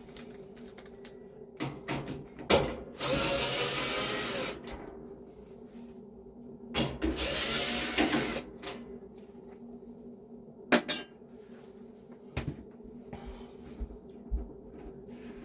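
A power drill running in two bursts of about a second and a half each, backing fasteners out of a dryer, with a few short clicks and knocks of handling in between.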